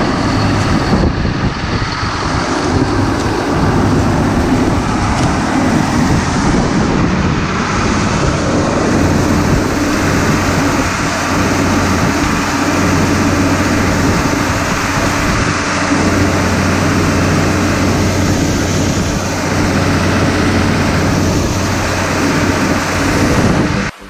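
Diesel engines of a tractor and a corn combine harvester running steadily in the field, a loud, even machinery noise with a low hum, while the combine unloads shelled corn into a trailer.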